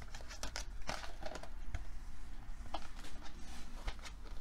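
A small paperboard box and its paper wrapping being handled: light rustling and a few soft taps and knocks, most of them in the first second and a half and a few more later on.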